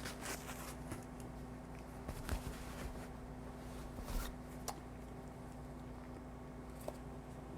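A steady low hum with a few soft, scattered clicks and taps.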